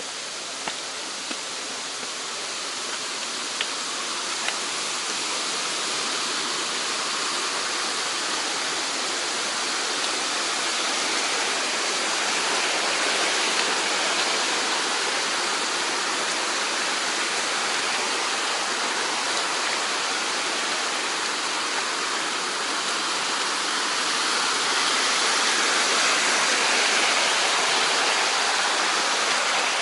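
Mountain stream rushing over rocks, swollen after rain, a steady hiss of water that grows gradually louder. A few faint knocks sound in the first few seconds.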